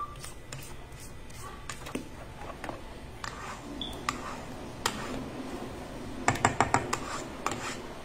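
Red silicone spatula scraping and knocking against the stainless-steel bowl of a stand mixer: scattered light clicks and scrapes, with a quick run of about five sharper taps about six seconds in.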